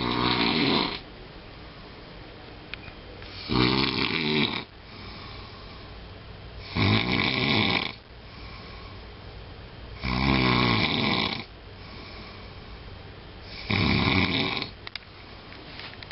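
A sleeping person snoring loudly: five snores, each about a second long, coming about every three and a half seconds.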